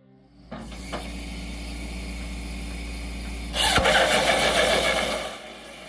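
A firewood-processing machine running with a steady low engine hum. About three and a half seconds in, a loud, harsh cutting noise lasts about a second and a half.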